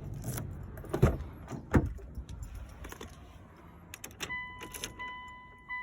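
A few knocks and clicks from a Mitsubishi Delica D5 minivan, then a steady high-pitched tone that begins about four seconds in and holds.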